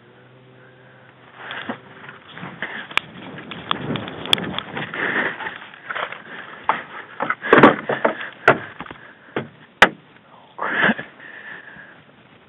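Close-up rustling and scuffing of movement, with several sharp clicks scattered through it. It is loudest in a couple of heavy bursts toward the second half.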